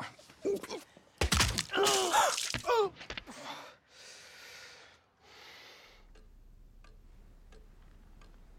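A person's loud, drawn-out groan with wavering pitch, followed by two long breaths out like sighs.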